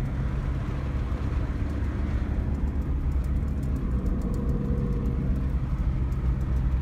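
A car driving steadily: a continuous low engine hum and road noise.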